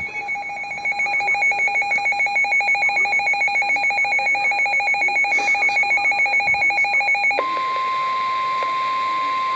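Electronic alert beep pulsing rapidly for about seven seconds, then switching to a single steady emergency alert tone of about 1 kHz, the Weather Radio warning alarm that heralds a severe thunderstorm warning.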